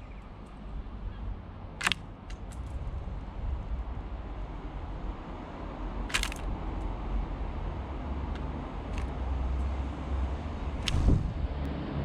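A house sparrow on a clear plastic window feeder makes a few sharp taps and clicks, about two, six and eleven seconds in; the longest, around six seconds, comes as it flutters off. Under them a low wind rumble on the microphone grows louder.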